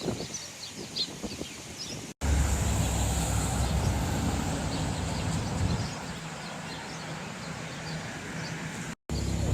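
Sparrows chirping in quick, short notes over faint background hum. About two seconds in, the sound cuts abruptly to a loud, steady low rumble of city traffic with the chirps faint beneath it; the rumble eases after a few seconds and comes back loud after a second cut near the end.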